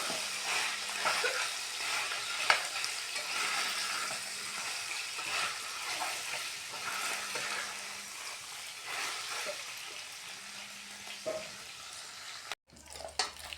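Beef pieces frying in hot oil, sizzling steadily, with a utensil stirring and knocking against the pan now and then. The sound cuts out abruptly for a moment near the end.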